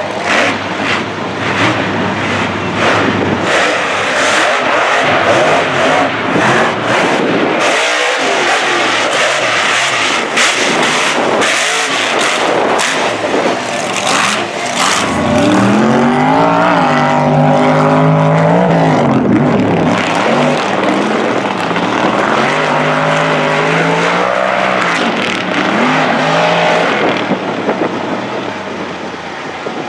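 Mega truck engine racing at full throttle on a dirt course: a loud, crackling roar. About halfway through, the engine note climbs and falls several times as the throttle is worked.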